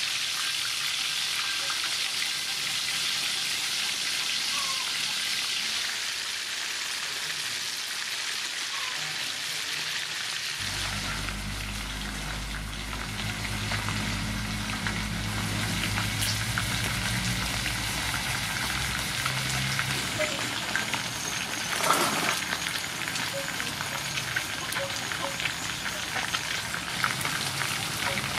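Sea mushroom pieces deep-frying in a wok of soybean oil: a steady sizzle, with crackling pops growing in the second half. A low hum joins for several seconds in the middle, and there is one sharp clack about two-thirds of the way through.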